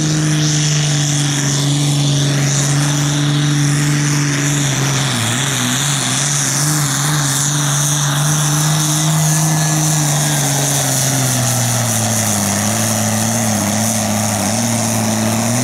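Diesel engine of a sport-class pulling tractor running flat out as it drags the weight sled, loud and steady. Its revs dip briefly about five seconds in, then sag lower from about ten seconds in as the sled's load builds.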